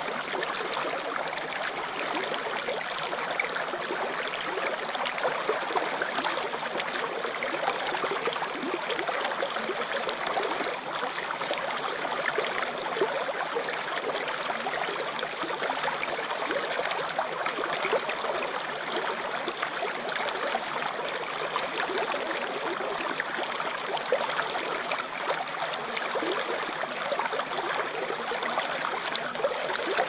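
Shallow stream water rippling and splashing over and between rocks close to the microphone: a steady, even rush with fine flickering detail and no let-up.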